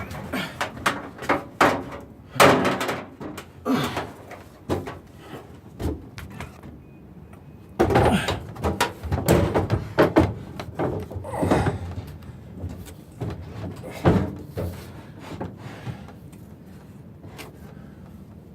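Irregular knocks, bumps and thuds of a microwave being handled and set onto wooden boards in a cabinet opening, with several louder knocks about two and a half seconds in, around eight to ten seconds in, and near fourteen seconds.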